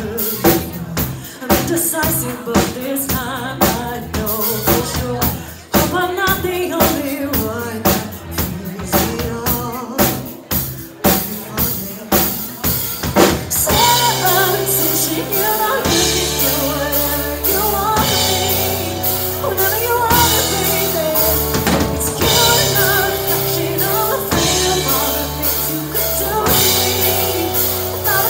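Live band playing with female vocals, drum kit, electric guitar and bass guitar. For the first dozen seconds the drums stand out with sharp, frequent hits; about 13 seconds in the full band comes in, with long held bass notes under the singing.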